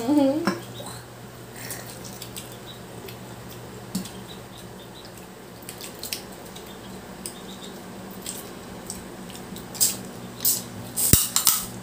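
Wet eating sounds of a garlic butter crab being eaten by hand: scattered squishes and sharp clicks of shell being cracked and picked, with a cluster of cracks near the end. A steady low hum runs underneath.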